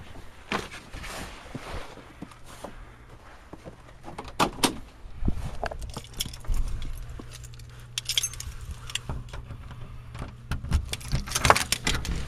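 Keys jangling amid a run of short knocks and clatters, over a low steady hum that comes in about a second in.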